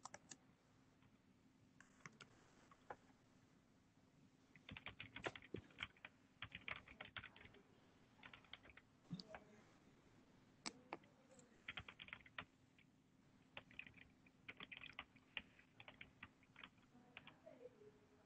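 Computer keyboard typing, faint, in several short runs of quick key clicks, over a faint steady hum.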